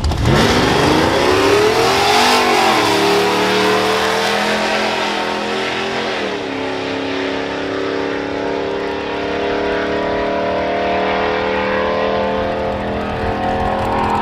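Pickup truck's engine at full throttle launching down a drag strip, the revs climbing and then dropping at an upshift about two and a half seconds in and again about six seconds in, then holding nearly steady as it pulls away.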